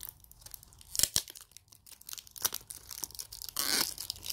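Packaging card and wrapping being handled and torn by hand while a hair tie is worked free: crinkling and small clicks, a sharp snap about a second in and a short rip near the end.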